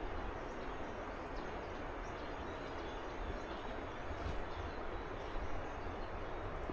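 Steady rushing of a river, with faint short bird calls now and then.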